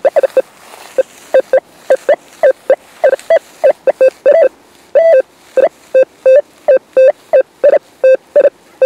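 Rutus Alter 71 metal detector on its basic (Dynamik) program giving a rapid, irregular string of short target beeps, about three a second, as the coil sweeps over the ground. Most beeps share one tone, with a few longer, slightly higher tones.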